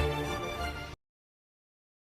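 Background music with sustained pitched notes, fading down and then cut off abruptly about a second in, leaving dead silence.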